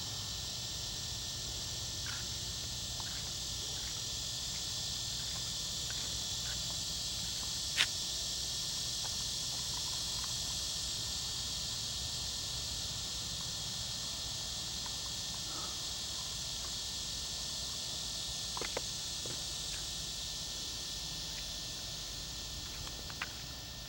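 Steady high-pitched chorus of insects, unbroken throughout, with one sharp click about eight seconds in and a few faint ticks later.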